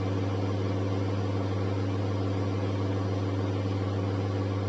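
Steady low electrical hum with a stack of even overtones and a constant hiss underneath, unchanging throughout.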